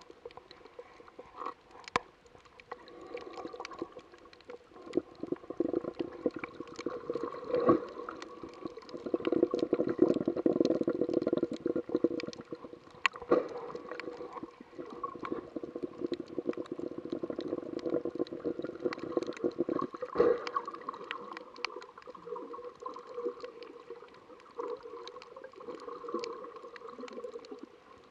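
Muffled underwater water noise heard through an action camera's waterproof housing: gurgling and sloshing with many scattered sharp clicks, swelling louder for a few seconds in the middle.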